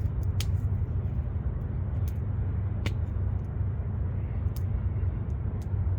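Wood campfire crackling, with sharp single pops every second or so, over a steady low rumble.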